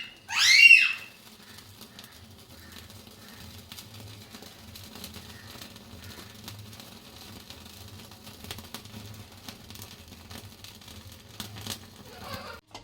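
Two short, high squeaky chirps at the very start. Then a faint, steady low hum with light crackling, from a piece of burning charcoal soaked in oil, smoking the cooked chicken.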